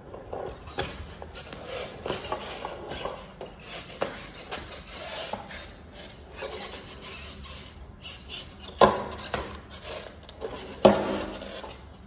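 Handling noise from a phone carried in the hand: irregular rubbing and scraping against the microphone, with two louder knocks in the second half.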